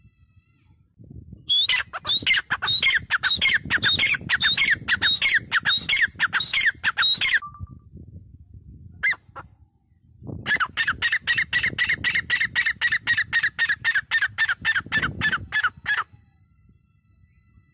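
Grey francolin calling: two long bouts of rapid, loud, shrill notes repeated several times a second, the first lasting about six seconds and the second about five, with two short notes in the pause between them.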